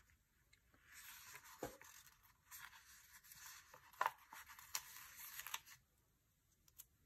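Faint papery rustling as a paper sticker is peeled off its backing sheet, with a few light clicks, the sharpest about four seconds in; it stops about six seconds in.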